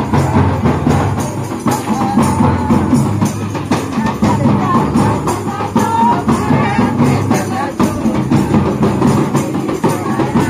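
Folk music with steady drumming and jingling percussion under a wavering melody.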